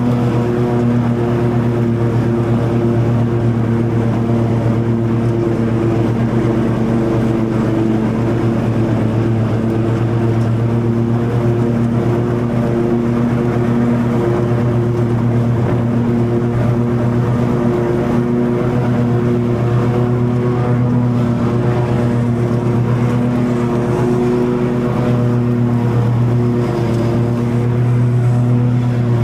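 Toro TimeCutter 50" zero-turn mower running steadily at cutting speed, engine and blades under load in long grass. The low engine tone eases slightly about three-quarters of the way through and comes back near the end.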